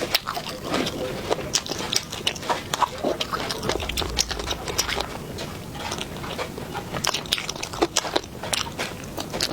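A person chewing and smacking while eating spicy fish, with many irregular wet clicks of mouth and lips.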